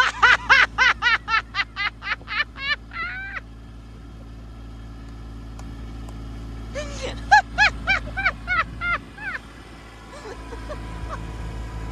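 High-pitched laughter in two runs of quick 'ha-ha-ha' bursts, the first trailing off lower and fainter. Under it, a Kubota LX2610 compact tractor's three-cylinder diesel runs steadily.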